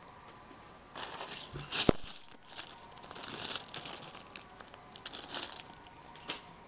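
Plastic bags of building-toy pieces crinkling and rustling as they are handled in a cardboard box, in irregular bursts, with one sharp click about two seconds in.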